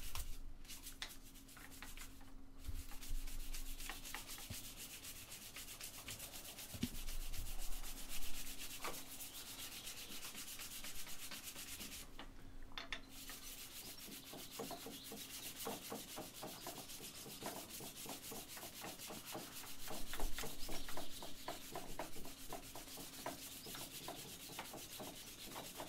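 A strip of fine-grit sanding belt pulled back and forth by hand around an antler knife handle: a long run of quick rubbing strokes, with a couple of brief pauses. This is the fine-grit smoothing stage of the handle.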